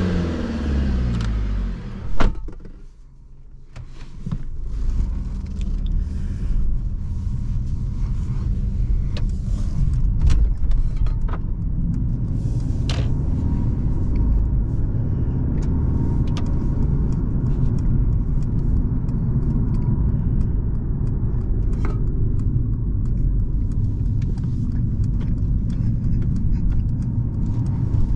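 Cabin sound of a 2024 Mercedes-Benz C220d, a four-cylinder diesel mild hybrid, on the move. The engine note dies away in the first second, a sharp click comes about two seconds in, and there is a short lull. After that comes a steady low rumble of engine and tyres at speed, with scattered light clicks.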